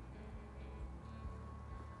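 Soft background music with held notes over a low, steady pulse.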